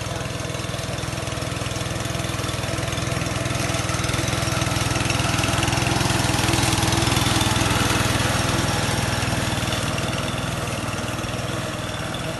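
Lawn mower engine running steadily with a low hum. It swells louder midway, as if passing close, then eases off.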